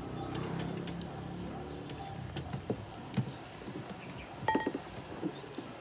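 Hand-eating sounds: fingers picking at rice and fried meat on a plate and food going to the mouth, heard as scattered soft clicks, taps and smacks. A low engine-like hum fades out in the first second or two.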